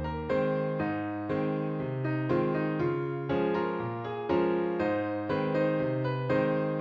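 Background music: a gentle electric piano playing chords in a steady rhythm, each note struck and fading.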